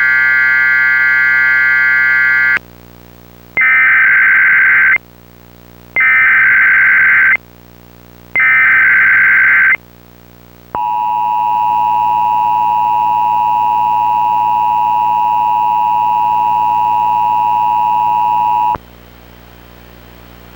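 Emergency Alert System tones from a Sage encoder. A short electronic multi-tone burst comes first, then three identical SAME data header bursts of a little over a second each. From about eleven seconds in comes the steady eight-second two-tone EAS attention signal, over a low hum.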